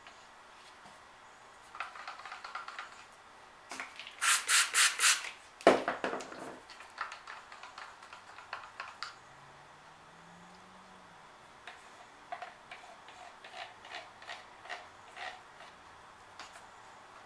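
A stir stick scraping round a plastic cup as acrylic pouring paint is stirred, in bursts of rubbing strokes, the loudest a quick run of about five strokes. A sharp knock comes about six seconds in, and steady strokes of about two a second follow near the end.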